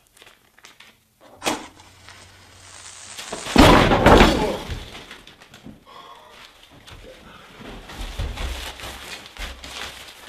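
A sudden loud burst about three and a half seconds in, after a rising hiss, dying away over about a second; a few dull thumps follow later.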